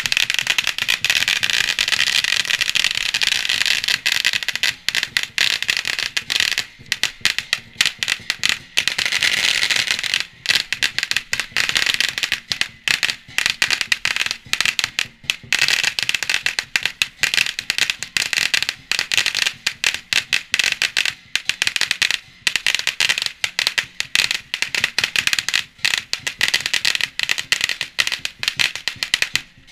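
A long string of firecrackers going off in a rapid, continuous crackle of sharp pops, with a few brief lulls.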